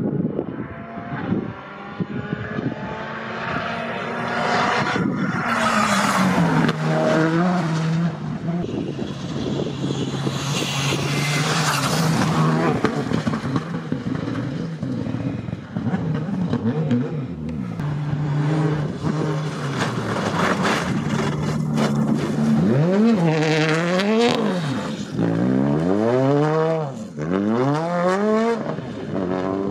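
Rally cars passing at speed, engines revving hard through the gears. Near the end the revs rise and fall sharply several times.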